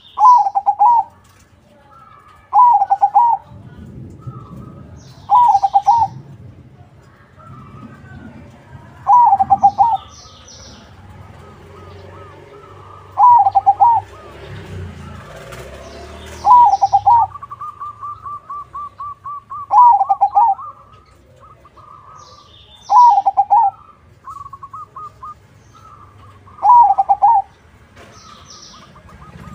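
A zebra dove (perkutut) of a crossbred 'crossing' line sings its loud, trilled cooing phrase nine times, about every three to four seconds. Midway, a quieter, fast rattling trill runs for a couple of seconds between phrases.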